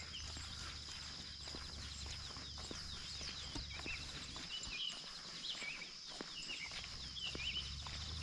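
Insects buzzing in a steady high drone, with birds giving short chirps now and then, over footsteps crunching along a trail.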